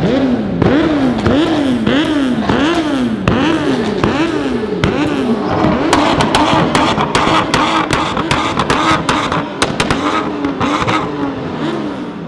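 A tuned car engine revved hard: about eight quick blips in a row, then held at high revs for several seconds with a rapid string of sharp exhaust cracks and pops, then a few more blips as it settles.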